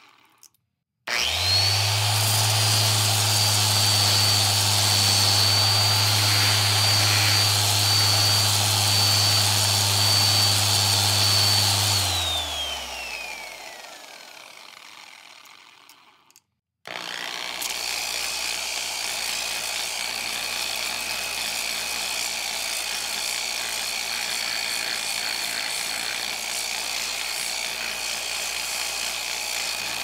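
Handheld electric disc sander on wood, switched on about a second in, spinning up at once to a steady high whine over a low motor hum. Around twelve seconds in it is switched off and winds down, the whine falling in pitch as it slows. After a short silence it starts again and runs steadily to the end, quieter and with a lower whine.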